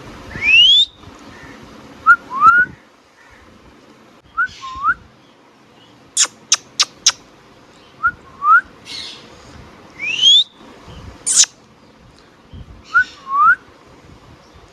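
Ringneck parrot whistling and chirping in a repeating sequence: quick rising whistles, pairs of short upward-hooked notes, and a run of four sharp high chirps about six seconds in.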